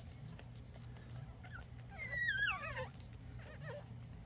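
Newborn pug puppy whimpering: one loud, high, wavering cry about two seconds in that slides down in pitch, with a few short, fainter squeaks around it.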